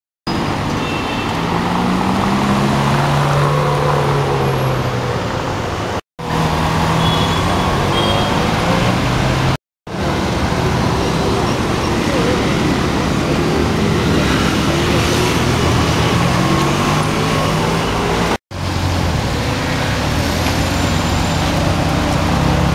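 Ferrari 430 Scuderia's V8 engine running at low revs as the car creeps through city traffic, its pitch holding fairly steady with small rises and falls, over street traffic noise. The sound cuts out suddenly three times for a moment.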